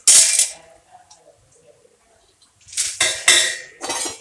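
A metal utensil scraping and clattering against an aluminium kadai of hot frying oil, in three short bursts: one at the start, one around three seconds in and one at the end.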